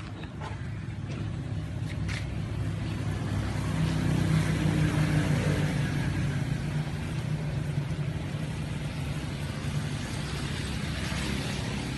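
A motor vehicle's engine running, growing louder about four seconds in and then easing off, as if passing.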